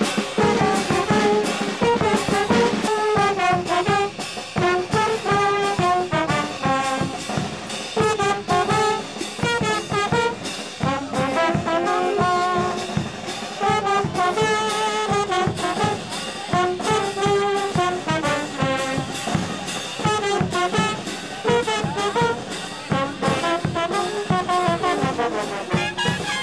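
Brass band music: horns play a moving melody over a steady, regular drum beat.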